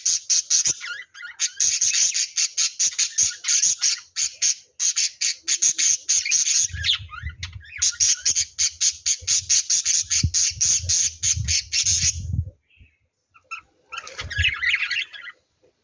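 Lovebirds chirping shrilly in a fast, unbroken run of several calls a second, with two brief pauses. A low rumble runs beneath the chirps in the middle stretch. The calling stops about three-quarters of the way in, then one short burst of chatter comes near the end.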